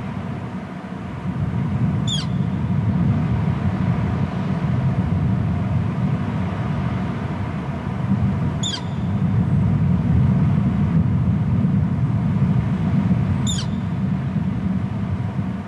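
Steady low rumble of wind on an outdoor nest-cam microphone, swelling and easing, with three short, high-pitched bird calls: about two seconds in, near nine seconds, and near thirteen and a half seconds.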